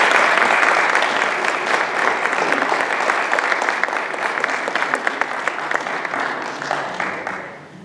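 Audience applauding: dense clapping from many hands that starts loud and gradually dies away near the end.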